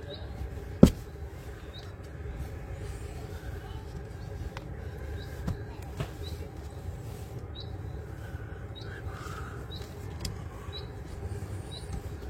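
Hands-on repair noises: one sharp knock about a second in, then a few lighter clicks, over a steady low rumble. A short high chirp repeats roughly once a second throughout.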